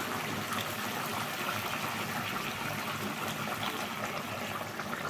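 Pot of fish curry bubbling steadily on the heat, a continuous, even simmer with fine crackles.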